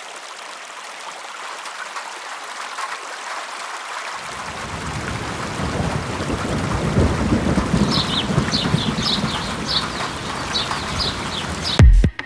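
Rain and thunder sound effect: steady rain with deep rolling thunder coming in about four seconds in and building, and a series of short high chirps near the end. Loud electronic dance music cuts in just before the end.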